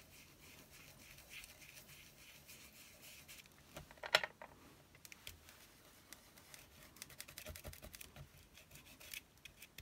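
Faint scratching and light clicks of hands handling paper and card pieces at a craft table, with one sharper click about four seconds in and a run of small ticks near the end.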